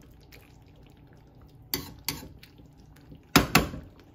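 Gravy faintly simmering in a stainless steel skillet of steak and onions, with a few light metal clicks partway through and two sharp metal clanks close together on the pan about three and a half seconds in.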